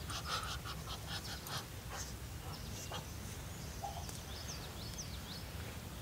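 Muscovy ducks hissing in quick, breathy puffs during the first second and a half, then a few faint high chirps over a low rumble.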